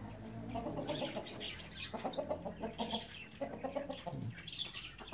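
Chickens clucking: a run of short, irregular calls as hens and roosters move about.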